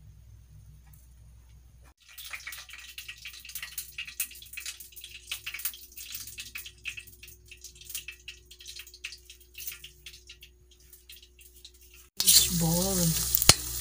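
Light, irregular crackling and popping, then about twelve seconds in a much louder frying sizzle starts abruptly: food frying in hot oil in a pan.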